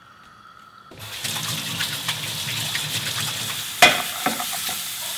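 Cut pork belly sizzling in a hot stainless steel frying pan as it is stirred with a wooden spoon; the sizzle starts suddenly about a second in. One sharp knock nearly four seconds in.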